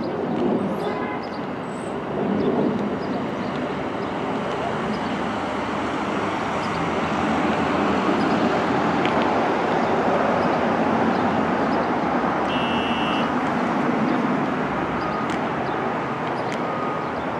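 NYC Subway 1 train (R62-family cars) moving through the station, a steady rumble of wheels and motors that swells in the middle. A short high tone sounds about twelve seconds in.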